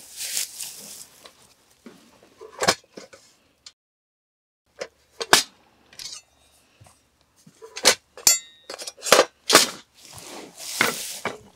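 Kitchen utensils being picked up and set down on a wooden table: a series of sharp wooden knocks, one short metallic clink with a brief ring about eight seconds in, and soft rustling at the start and near the end.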